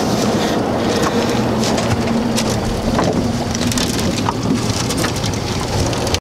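Boat motor idling with a steady low hum under a constant wash of wind and water noise, with a few light knocks about two to four seconds in.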